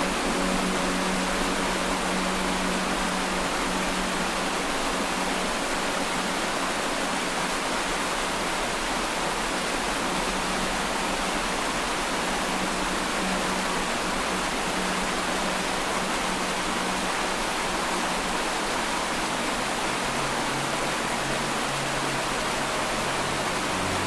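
Waterfall rushing and splashing over rocks: a steady, unbroken rush of white water.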